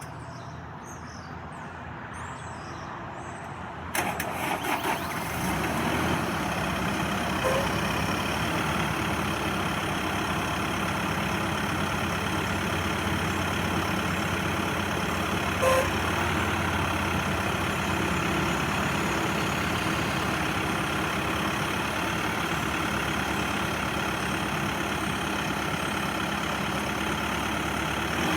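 Mahindra mForce 105P tractor's diesel engine starting about four seconds in, then running steadily.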